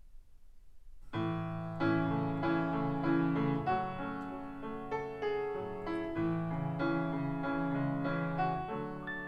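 Piano-led music played back over Harbeth SHL5+ loudspeakers driven by a FEZZ Audio Mira Ceti 300B single-ended valve amplifier, picked up by a microphone in the room. A faint low hum comes first, and the piano chords start about a second in.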